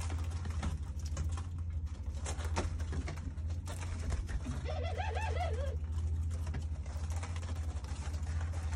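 Ringneck doves in an aviary: one dove gives a wavering, stuttering coo about five seconds in, over scattered light ticks and taps from the birds moving about on the seed-strewn floor and a steady low hum.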